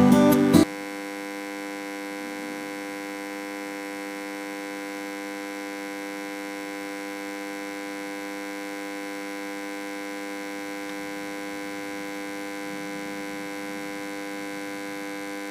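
Guitar music cuts off about half a second in, leaving a steady, unchanging electrical hum with many overtones.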